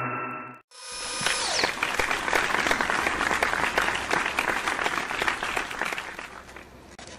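Applause, a dense patter of many claps that starts abruptly about a second in and fades out near the end.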